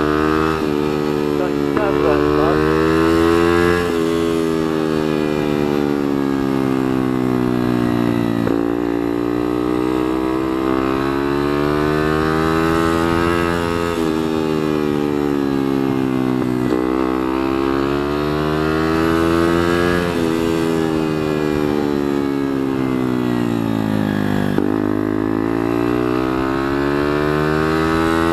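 Bullit Hero 125's single-cylinder 125cc four-stroke engine under way. Its pitch climbs as it pulls and drops suddenly at each gear change, about four and eight seconds in, then later eases down slowly and builds again near the end.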